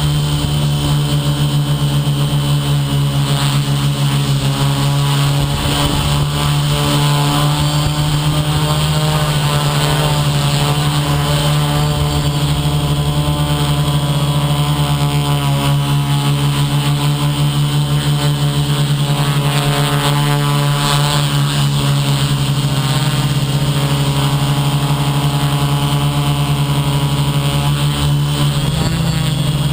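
Electric motors and propellers of a small FPV aircraft running at steady speed: a loud, constant buzzing hum with many overtones, its pitch wavering slightly now and then.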